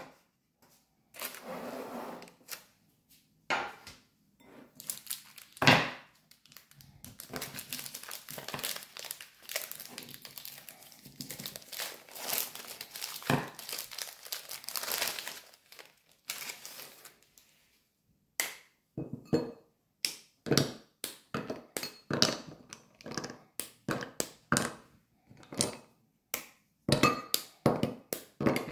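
Crinkling and rustling of wrapping material being handled, with a sharp knock now and then; about two-thirds in, after a short pause, it gives way to a run of separate light clicks and taps.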